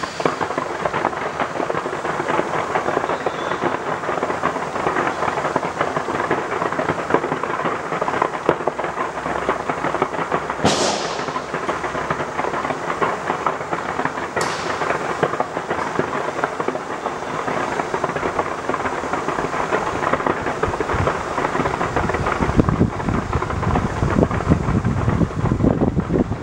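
A fireworks display fired from the sides of a skyscraper: a dense, continuous barrage of crackling bangs, with two brief high falling whistles about 11 and 14 seconds in and deeper booms toward the end.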